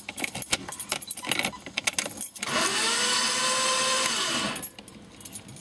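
Keys jingling and clicking at the ignition, then the 1991 BMW 525i's starter motor cranking for about two seconds with a whine that rises, holds and winds down, and the engine does not catch. This is a no-start that the owner suspects comes from the fuel filter or fuel pump.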